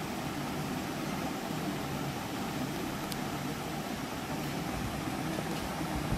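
Steady low hum and hiss of room background noise, with one faint click about three seconds in.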